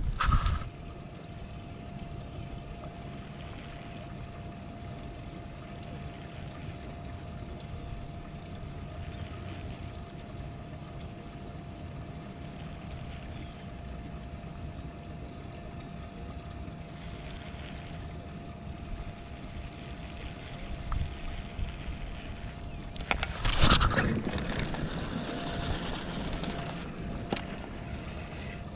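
Outdoor background on a small fishing boat: a steady low rumble with a faint steady hum, and faint short high chirps about once a second. About 23 seconds in comes a loud knock with rustling that goes on for a few seconds.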